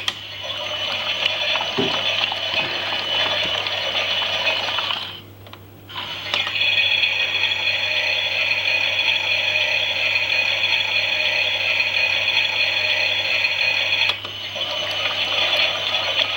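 Toy Klein Miele washing machine's small motor and plastic gears turning the drum, running steadily. It stops for about a second around five seconds in, then starts again, with a brief dip near the end.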